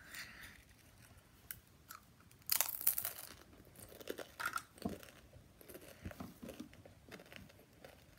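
Doritos tortilla chips being bitten and chewed, with crisp crunches now and then; the loudest crunch comes about two and a half seconds in.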